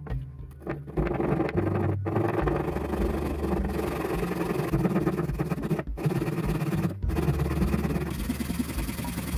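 Hand saw rasping back and forth through a plastic cup, starting about a second in, with fast, steady strokes and a few brief breaks.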